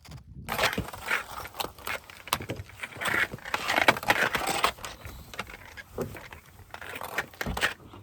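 Footsteps crunching through wet, slushy snow: irregular crunches, busiest a few seconds in.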